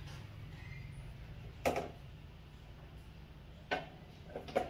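Metal screwdriver clicking and scraping against screws and metal parts inside an electric fan's motor housing: one sharp click about a third of the way in, then three more close together near the end.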